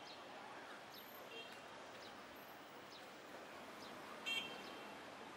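City street ambience: a steady hum of traffic and people, broken by a few short, high-pitched chirps, the loudest just over four seconds in.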